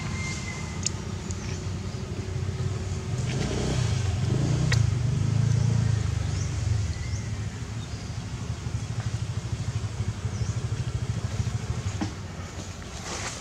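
A motor vehicle engine running off-screen, a low hum that grows louder about four seconds in and eases off after six, then pulses unevenly, with a few faint clicks.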